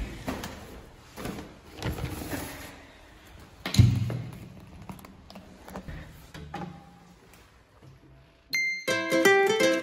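Paper shopping bags rustling and being handled, with a single loud thud about four seconds in and softer knocks after it. Ukulele music starts near the end.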